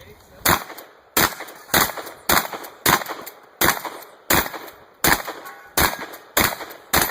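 Winchester Model 1300 pump-action shotgun fired in quick succession: eleven shots about two-thirds of a second apart, each a sharp report with a short decay.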